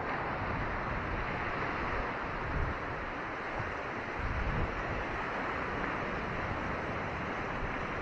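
Ocean surf breaking offshore and washing over a rocky shore: a steady rush of water. Wind buffets the microphone in low gusts about two and a half and four and a half seconds in.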